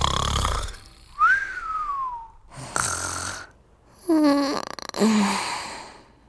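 A person snoring over a few breaths: a whistled tone that rises and then slides down, a noisy breath, then two short pitched snores, the second lower than the first.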